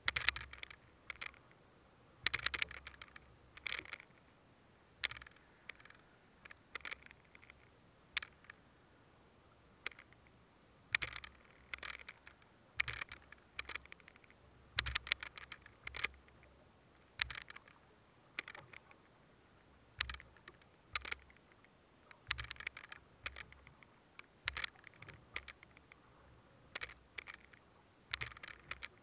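Fishing handline pulled hand over hand through a gloved hand and over the boat's edge: a string of short scrapes and clicks, coming in clusters every second or two.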